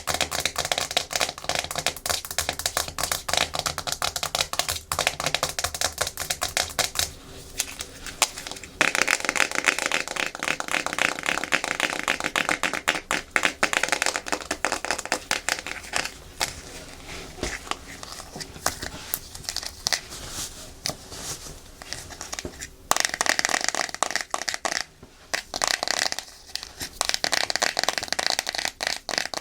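Natural fingernails tapping and scratching fast on a hard plastic surface, a dense stream of clicks that changes in texture a few times.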